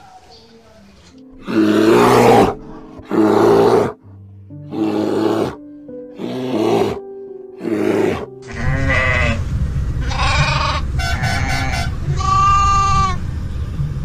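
A brown bear growling in five loud, harsh calls, then a large flock of goats bleating over the low rumble of the moving herd, with background music underneath.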